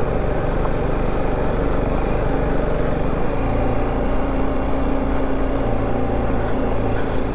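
TVS Apache RR310's single-cylinder engine running steadily as the motorcycle is ridden up a rough track, heard from the rider's helmet, with a slight change in engine note about three seconds in.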